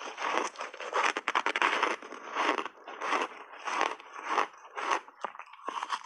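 Crunching and chewing of refrozen, reshaped ice dipped in passionfruit pulp, in a steady run of crisp crunches about two a second.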